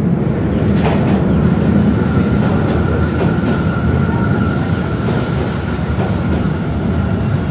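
Tokyo subway train running at speed, with a loud, steady rumble of wheels on rails. A steady high whine sets in about a second in and fades about six seconds in.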